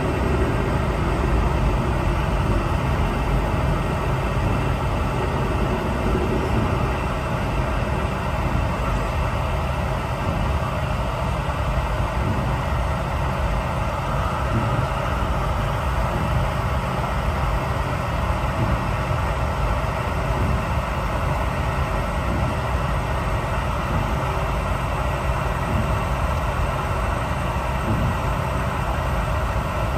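Steady cabin noise aboard a Boeing 717-200 airliner: a constant low hum under an even rush of air, with no distinct events.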